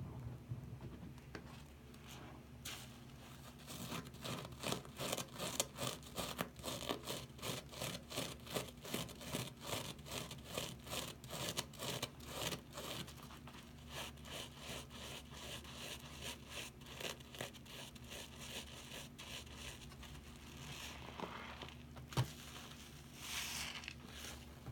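Soapy sponges squeezed and rubbed by hand in a sink of foamy water: a fast, regular run of wet squishing squeezes, about two a second, easing into a couple of longer swishes near the end.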